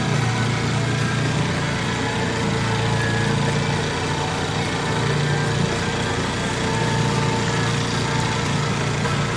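Boat engine running steadily, a constant low drone with an even hiss over it.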